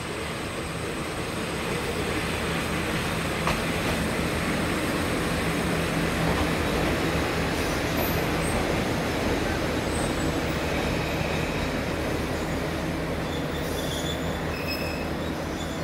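A diesel railcar runs past the station. Its engine and wheels make a rumble with a low engine hum, which swells to a peak midway and then eases off as it moves away. Insects trill and chirp high above it.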